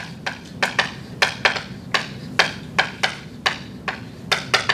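Chalk tapping against a blackboard in quick, short strokes, about four or five sharp clicks a second, as a region of a diagram is hatched in.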